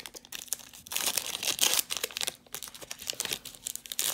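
Foil Pokémon card booster pack wrapper crinkling as it is handled and pulled open to get the cards out, loudest about a second in.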